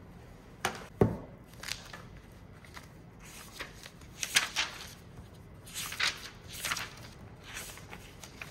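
Irregular rustles and clicks of objects being handled, about a dozen in all, with the loudest a sharp knock about a second in.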